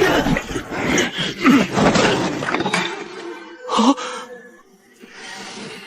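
A man groaning and grunting over background music, with a short loud outburst about four seconds in.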